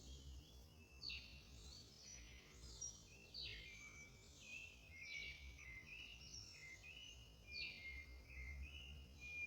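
Faint bird song: a bird repeats the same short phrase three times, each a downward-sweeping whistle followed by a run of quick notes, over a faint low rumble.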